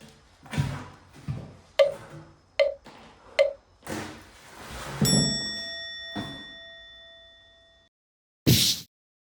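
Metal being struck: three sharp knocks with a short ring, then one blow that leaves a bell-like metallic ring fading out over about three seconds.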